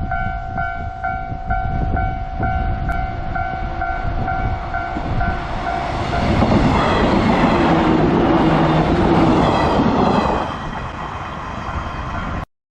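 A Japanese level-crossing warning bell dings about twice a second. About six seconds in, a train passes through the crossing with loud running noise and wheel-on-rail sound that lasts about four seconds and then eases off. The sound cuts off abruptly just before the end.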